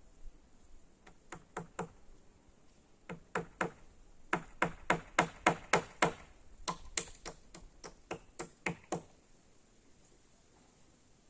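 Hammering: a series of sharp knocks in short irregular runs, about four blows a second at the busiest, stopping about nine seconds in.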